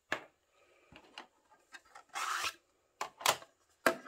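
Plastic diamond-painting drill trays being handled and stacked on a wooden desk: several light clacks as they are picked up and set down, and a short scraping rub about two seconds in.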